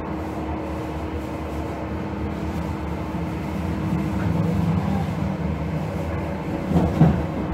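1977 KVB B100S Stadtbahn light-rail car running, its 750 V DC traction motors with cam-controller drive and its wheels on the rails giving a steady rumbling hum that swells a little around the middle. A brief knock comes about seven seconds in.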